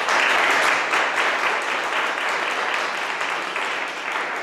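Audience applauding, starting all at once and loud, then slowly easing off.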